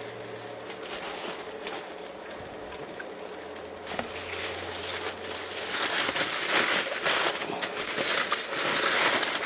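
Aluminium foil crinkling and crumpling as cooked chicken halves are wrapped in it, getting louder about four seconds in and again about six seconds in.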